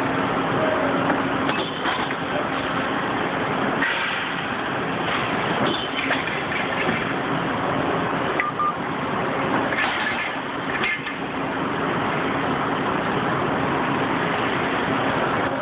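Hydraulic power unit of a Patriot RDB76 CNC three-stack tube bender running with a steady hum while the machine works through a bend cycle. Several clunks come from its clamps and bend arm, about five across the cycle.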